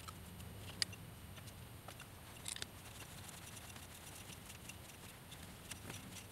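Faint, scattered clicks and light taps of a hex key and small parts as a cable connector is screwed onto a CNC machine rail, over a low steady hum.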